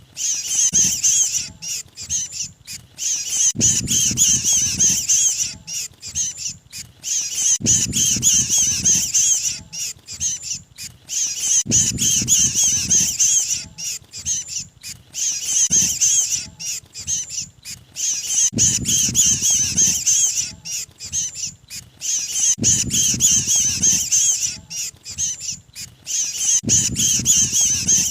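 Mantenan bird distress calls, as if the bird were caught or pinched, played as a bird-lure recording. Rapid, high, chattering squawks run in bursts that break off briefly and start again every few seconds, with a low dull noise underneath about every four seconds.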